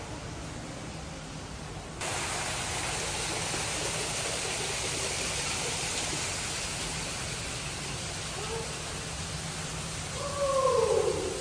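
Steady rushing ambient noise, like running water, which gets louder about two seconds in. Near the end comes a short call that falls in pitch.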